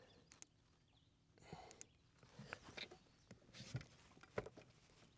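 Near silence with faint scattered clicks and knocks of gear being handled on a fishing boat's front deck; one knock a little over four seconds in is the loudest.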